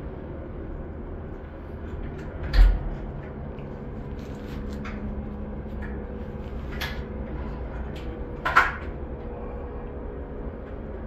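A PATH train runs with a steady low rumble and a faint motor hum. Two sharp, loud knocks come through, one about two and a half seconds in and another about six seconds later.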